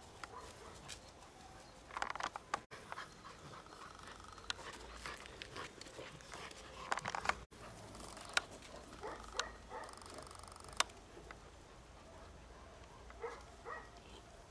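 Shar-Pei puppies playing: short bursts of puppy vocalising in clusters, with panting and scattered sharp clicks.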